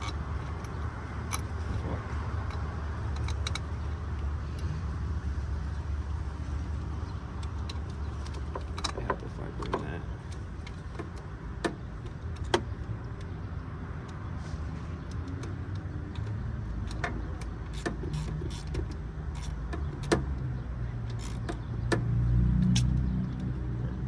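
Scattered sharp metal clicks and taps from hand tools working on the engine's alternator bracket bolts, over a steady low rumble, with a louder low swell near the end.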